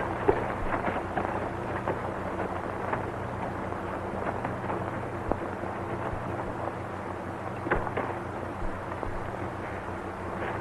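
Horse hooves clopping at a walk on hard ground, thickest in the first few seconds and then only a few scattered hits. Beneath them runs the steady hum and hiss of an old film soundtrack.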